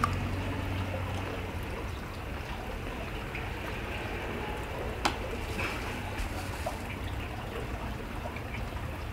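Steady low background noise, like room tone, with a few faint ticks and one sharp click about five seconds in.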